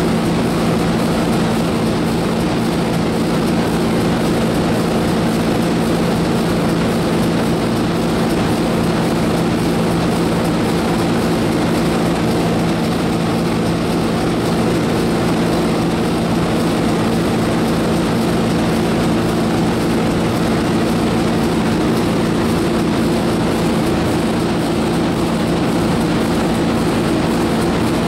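The 1932 Burmeister & Wain double-acting two-stroke diesel engine running steadily: a loud, even mechanical drone with a steady low hum.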